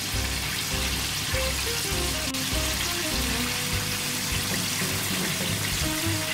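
Flour-coated chicken deep-frying in a pot of hot oil: a steady bubbling sizzle. Background music with a regular beat plays over it.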